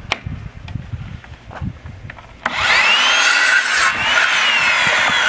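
A few clicks and knocks of handling as a battery is fitted into a Ryobi One+ 18V cordless compact miter saw. About two and a half seconds in, its motor starts with a rising whine, and the 7 1/4-inch carbide-tipped blade cuts into a wooden board, the whine sagging under load.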